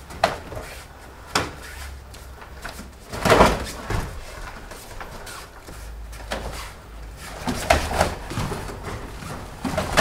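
Karate sparring: a handful of sharp slaps and thuds as gloved punches and kicks land and feet stamp on foam mats, scattered irregularly, with the loudest cluster about three seconds in.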